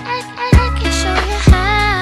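Background music with a steady drum beat, a bass line and a gliding melody on top.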